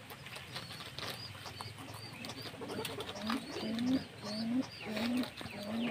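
Guinea pigs chewing and crunching a wedge of cabbage, small clicks throughout. From about halfway in, a bird gives a run of short, low, rising calls about twice a second.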